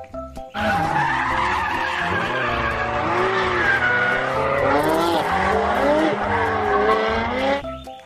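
Sports car drifting through a corner, its engine revving up and down with tyres squealing. It starts about half a second in and cuts off near the end.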